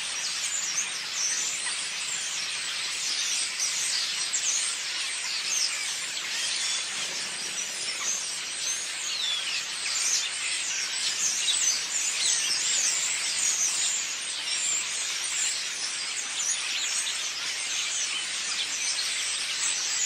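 A large flock of birds chattering together in the hedge and trees: many short, high, falling calls overlapping without a break at an even level.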